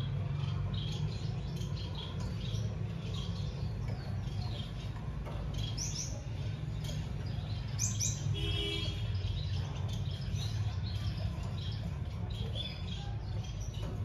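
Small cage finches chirping: many short, high chirps and quick rising twitters, with one buzzy note just after the middle. A steady low hum runs underneath.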